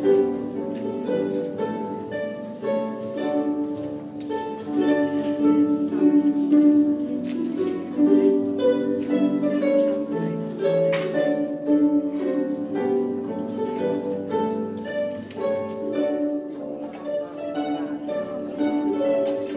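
Four Welsh triple harps playing a traditional Welsh tune together: a steady stream of plucked notes.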